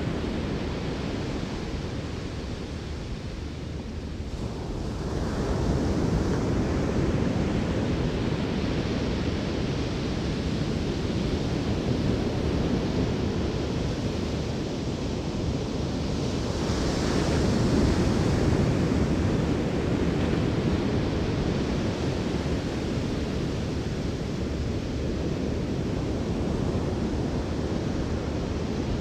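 Ocean surf breaking on a sandy beach: a continuous wash of waves, swelling louder as breakers crash, the biggest about two-thirds of the way through.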